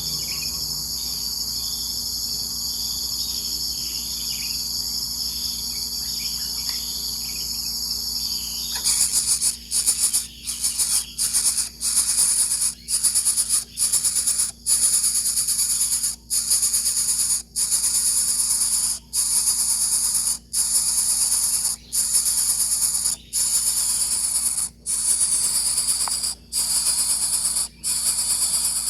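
Steady high-pitched insect chorus, with a few faint short chirps in the first part. About nine seconds in it turns into a pulsing sound broken by short gaps roughly every second and a half.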